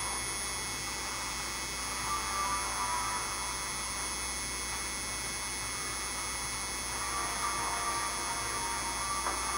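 Steady electrical mains hum with several thin, high steady tones over it. Faint indistinct sounds rise briefly about two seconds in and again near the end.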